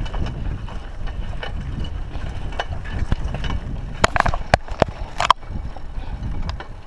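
Mountain bike rolling over a dry dirt track, a steady low rumble of tyres and wind on the chest-mounted camera's microphone. About four seconds in come a handful of sharp knocks as a gloved hand bumps the camera.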